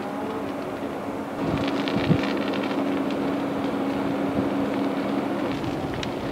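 Burning brush and trees crackling and popping irregularly, the crackle growing louder about a second and a half in, over a steady engine hum.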